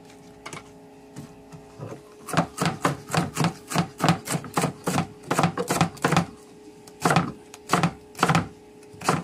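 Chef's knife slicing banana heart on a cutting board: a quick run of knife strikes on the board begins about two seconds in, about four a second, then slows to single cuts about half a second apart near the end.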